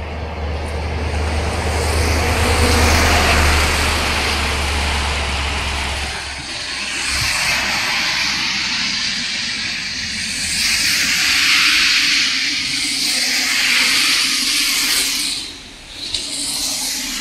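Rushing mountain stream: a steady hiss of water over rocks that swells and fades, with a low rumble under it for the first six seconds that stops abruptly.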